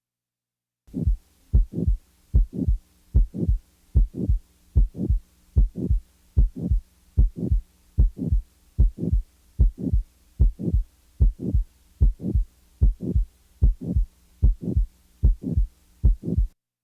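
Stethoscope recording of a human heartbeat: a regular run of paired lub-dub heart sounds, low and thudding, starting about a second in and stopping shortly before the end, with a faint steady hum under the beats.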